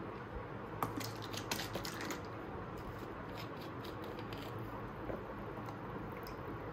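Plastic drink bottle being handled, giving a run of sharp crackling clicks, then its plastic screw cap twisted open with a second cluster of small clicks.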